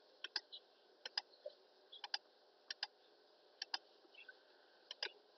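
Faint clicks of a computer mouse, mostly in quick pairs about once a second, as a software list is scrolled through.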